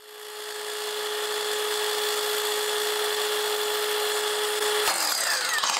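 Festool Kapex sliding miter saw motor running with a steady high whine. About five seconds in it is switched off and spins down, its pitch falling.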